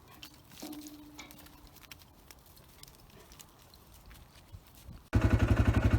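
Faint scattered ticks and rustles with one short, soft steady call about a second in. About five seconds in, a vehicle engine running steadily cuts in abruptly and is by far the loudest sound.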